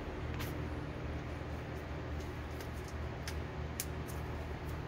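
Light scattered clicks and ticks of a bundle of insulated wiring-harness wires being handled and sorted by hand, over a steady low background hum.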